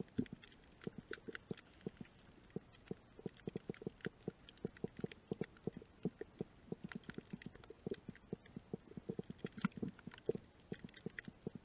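Underwater crackle of short, irregular clicks and pops, several a second, heard through the water in a shallow coral tide pool.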